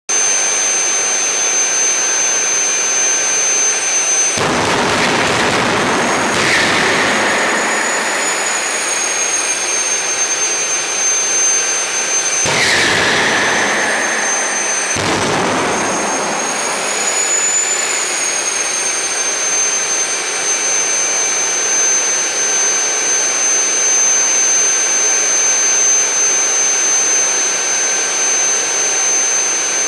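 The homemade HX Monster jet engine running with its afterburner pipe: a steady high turbine whine over a rushing jet roar. The roar suddenly deepens and fills out about four seconds in, again around twelve and fifteen seconds, while the whine rises a little and falls back.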